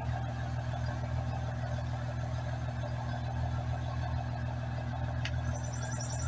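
An engine idling steadily, a low even hum. A single click comes about five seconds in.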